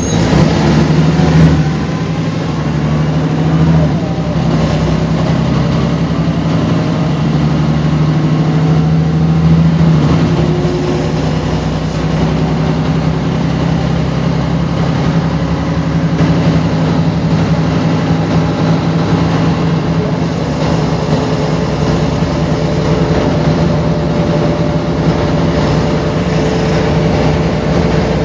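Mercedes-Benz O405GN articulated bus's horizontal six-cylinder diesel engine running with a steady drone, which eases slightly after about ten seconds.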